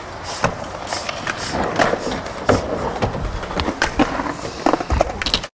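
Stunt scooter wheels rolling on skatepark concrete, with repeated sharp clacks from the scooters. The sound cuts off suddenly near the end.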